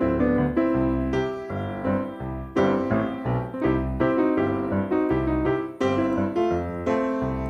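Background music: piano or electric keyboard playing a steady run of notes over a bass line.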